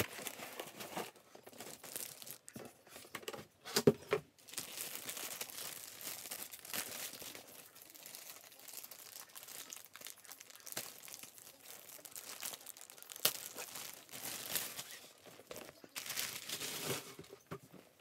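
Plastic wrapping crinkling and tearing as a new laptop bag is unwrapped by hand, in irregular rustles, with a sharp tap about four seconds in.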